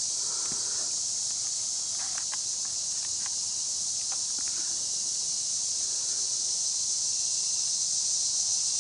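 Steady high-pitched chorus of insects, with a few faint ticks between about two and four seconds in.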